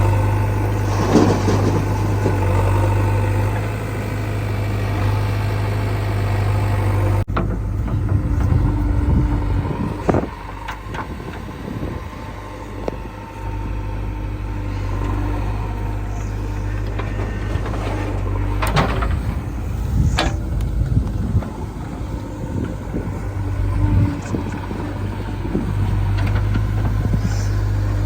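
Diesel engines of a backhoe loader and a tractor running steadily, with a few sharp knocks and clanks. The sound changes abruptly about seven seconds in.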